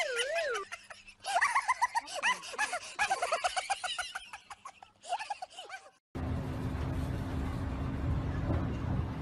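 Cartoonish comedy sound effects: a wobbling, falling tone, then a run of quick warbling, squawk-like pitched sounds. About six seconds in, these cut off suddenly and give way to the steady rumble of a bus's engine heard from inside the bus.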